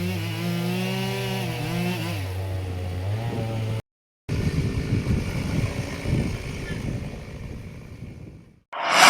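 Chainsaw engine running steadily, its pitch wavering briefly, cut off abruptly a little under four seconds in. After a short gap there is a low rumble, then a loud short whoosh near the end.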